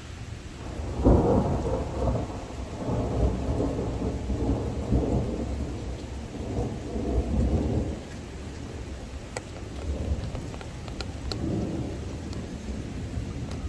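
A thunderclap starts abruptly about a second in and rolls on in a low rumble for several seconds before dying down. A weaker second rumble comes near the end. Rain falls throughout.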